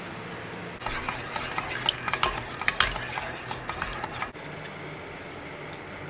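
A run of light, irregular clinks and clicks of kitchen utensils against a pot, lasting about three and a half seconds and sharpest in the middle, then softer kitchen background.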